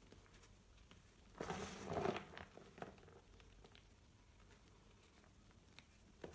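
Hands crushing and sifting dry pink reformed gym chalk chunks in a plastic tub. A burst of soft crunching and crumbling comes about a second and a half in, then light pattering as small chalk bits fall back onto the pile.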